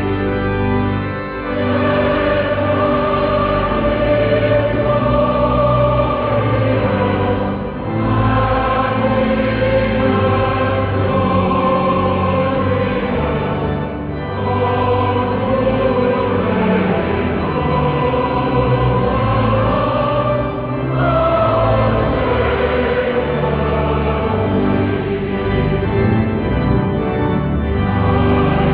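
Choral music: a choir singing slow, sustained phrases, with short breaks between phrases about every six to seven seconds.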